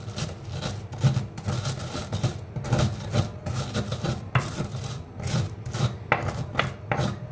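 Stone pestle grinding coriander seeds and coarse salt in a stone mortar (ulekan on cobek): stone rubbing and scraping on stone with a gritty crunch, in quick irregular strokes.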